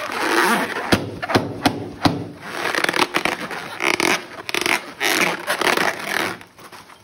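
Slime being squeezed and mixed by hand: a dense, noisy handling sound with sharp clicks, stopping about six and a half seconds in.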